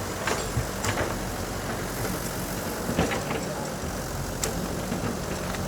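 Heavy construction-machine engine running steadily, with a few sharp knocks and clanks scattered through it.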